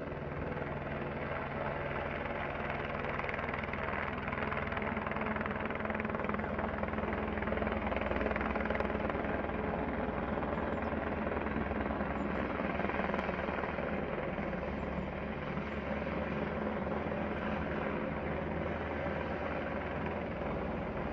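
Helicopter flying by at a distance: a steady rotor and engine noise with low droning tones, a little louder around the middle.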